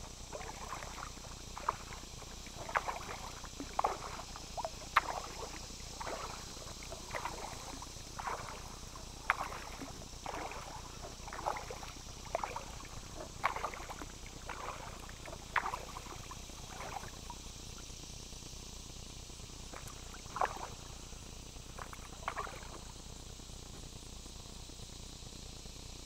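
Kayak paddle strokes: the blade dips and splashes in the water about once a second, stopping about two-thirds of the way through, then two single strokes near the end. A steady insect buzz runs underneath.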